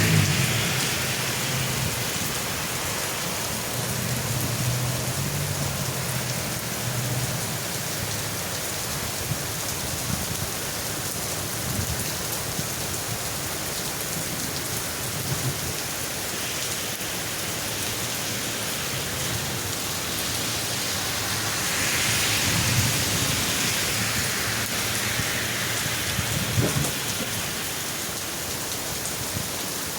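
Heavy rain pouring steadily during a thunderstorm, with low rumbles of thunder swelling twice, early on and again near the end.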